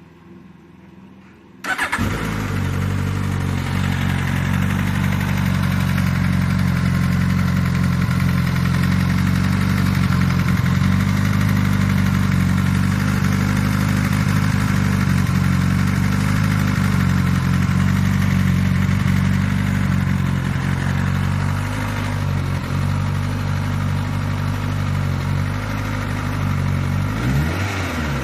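Suzuki GSX-S1000 GT+ inline-four motorcycle engine starting hot about two seconds in, then idling steadily, with a brief change in pitch near the end. It is the hot start-up rattle that the owner takes to be not normal.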